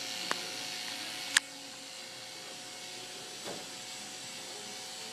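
Electric hair clippers running with a steady buzz, with a sharp click at about a second and a half in, after which the buzz is a little quieter.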